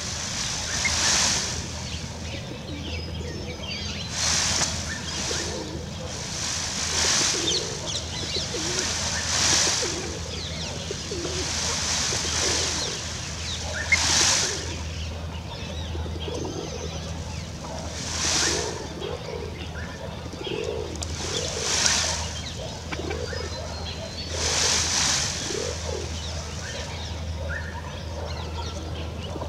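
A displaying peacock (Indian peafowl) shivering its fanned train, giving a brief rustling rattle every two to four seconds, with soft low cooing between.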